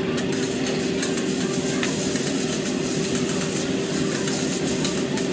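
Noodles sizzling on a hot teppanyaki griddle as a chef tosses and spreads them with metal spatulas, with many quick clicks and scrapes of the spatulas on the steel. A steady low hum runs underneath.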